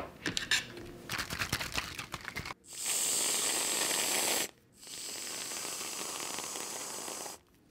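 Whipped cream hissing out of an aerosol can in two long sprays, the first louder, each starting and stopping abruptly. Before them come a few light clicks and knocks.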